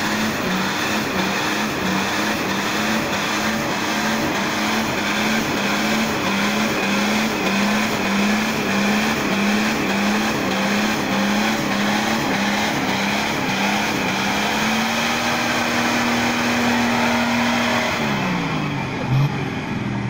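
Nissan Patrol's 3.3 turbodiesel engine held at high revs under load, its note pulsing about one and a half times a second, over a constant rushing of tyres on rough ground. The revs rise slightly and hold steady near the end, then drop away.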